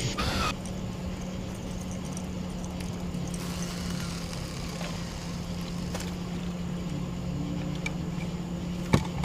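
Steady low hum of a small motor aboard a fishing boat, with a brief rush of noise at the start and a single sharp click near the end.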